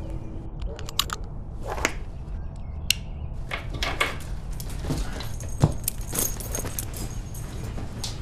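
Light metallic jingling and several sharp clicks and knocks as a rope dog leash with a metal ring is handled and picked up, the jingling strongest a little past the middle.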